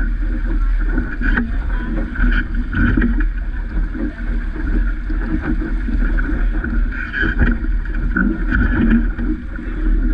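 Wind buffeting the microphone and water rushing and splashing along the hull of a small sailing dinghy under way.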